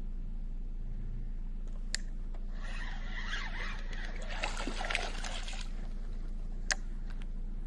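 A hooked fish thrashing and splashing at the water's surface for about three seconds as it is played on a line. There is a sharp click a little before the splashing and another about a second after it.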